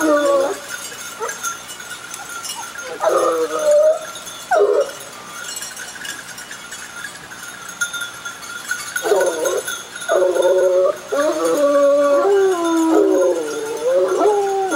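A pack of Grand Gascon hounds giving tongue on a scent trail: a few voices baying briefly about three seconds in, then several hounds baying together through the second half.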